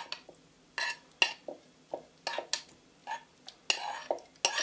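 A utensil scraping and tapping against a frying pan as fried liver and vegetables are tipped into a plastic blender bowl: a string of short, irregular scrapes and clinks.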